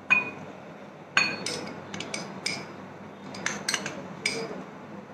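A metal spoon clinking against glass bowls as chopped onion is scraped out and tipped into a bowl of diced mango. There are about a dozen light, irregular clinks, each with a short ring.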